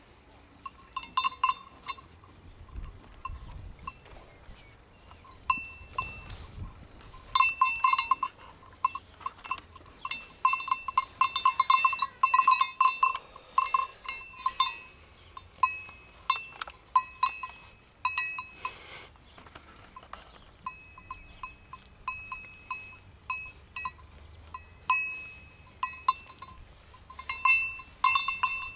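Bells on sheep's collars clanking irregularly as the sheep move and graze, each strike ringing briefly, with quick runs of strikes at times.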